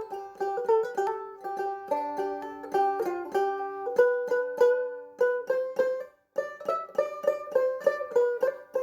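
Background music: a plucked string instrument playing a quick melody of short, decaying notes, with a brief pause about six seconds in.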